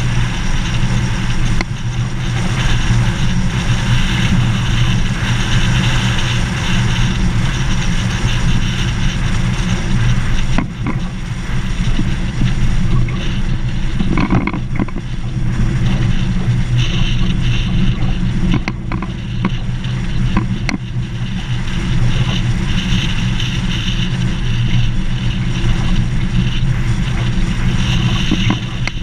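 Vehicle driving on a gravel dirt road: a steady rumble of engine and tyres, with a few short knocks from bumps in the road around the middle.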